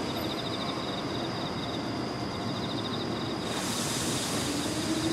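Steady night background with a fast pulsing insect trill. From about halfway a hiss swells as a Meitetsu train approaches the level crossing, and near the end a rising whine from the train begins.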